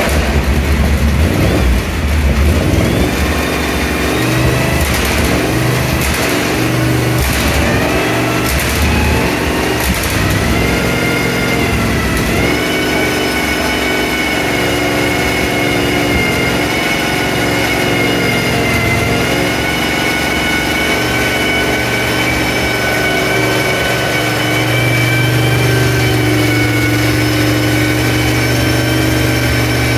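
Duqueine D08 LMP3 car's Nissan 5.6-litre V8 running at idle in the garage, its pitch stepping up and down over the first dozen seconds and then settling, with a steadier, firmer idle in the last few seconds. A steady high whine runs over the engine throughout.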